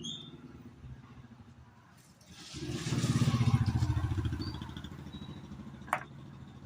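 A motor vehicle engine passing by, swelling and then fading over about three seconds, with one sharp click near the end.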